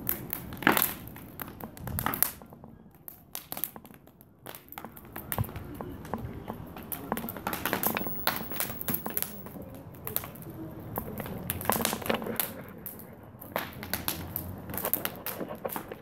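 Old fence and summerhouse timber burning hot in a metal garden incinerator bin, crackling with many irregular sharp pops.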